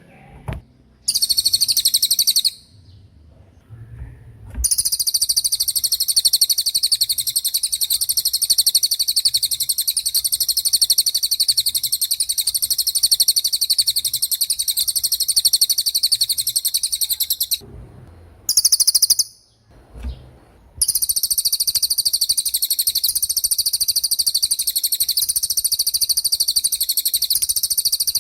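Cililin bird singing its rapid-fire 'tembakan' song: very fast, high-pitched trills of repeated notes. A short burst about a second in, a long run from about five seconds lasting some thirteen seconds, another short burst, then a second long run from about 21 seconds on.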